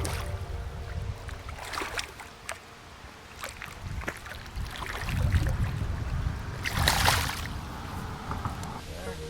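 Outdoor riverside noise: a low rumble with the rush of water and wind. Scattered short knocks run through it, and a louder hissing rush comes about seven seconds in.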